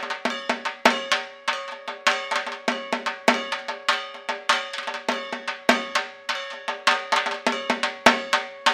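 Music of fast metallic percussion: sharp, ringing strikes several times a second in an uneven rhythm, over steady ringing tones.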